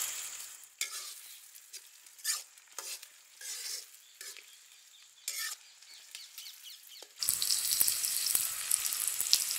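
Metal spatula stirring shallots, dried red chillies and curry leaves in hot oil in an iron kadai, a series of short scrapes. About seven seconds in, a loud, steady sizzle of the frying oil takes over.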